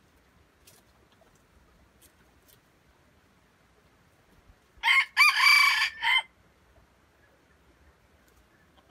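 A red junglefowl rooster crows once, about five seconds in: a short crow of about a second and a half, broken into three parts.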